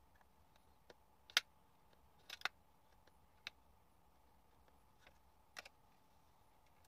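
Scattered light clicks and taps of fingers and nails on a cardboard eyeshadow palette and its pans as it is handled, the loudest about a second and a half in.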